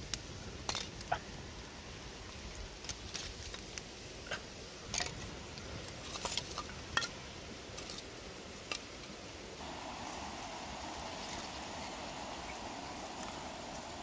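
Freshly lit twig fire crackling, with irregular sharp snaps and pops as the dry kindling catches. A steady mid-pitched hiss joins about ten seconds in.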